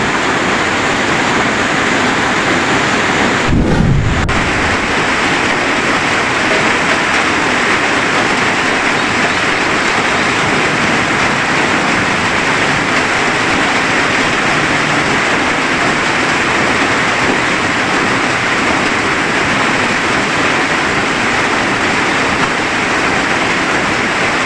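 Steady heavy rain hissing without a break. About three and a half seconds in comes a short, low thump or rumble of under a second.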